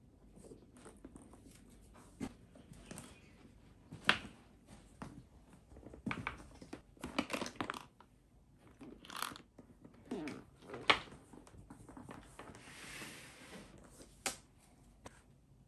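Hands handling a large leather tote bag: rustling and scuffing of the leather as it is moved and opened, with a few sharp knocks, the loudest about four seconds in and about eleven seconds in.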